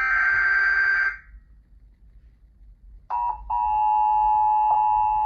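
Emergency Alert System data-header burst, a harsh digital buzz, cutting off about a second in. After about two seconds of quiet, the EAS two-tone attention signal starts and holds steady, announcing an incoming severe weather warning.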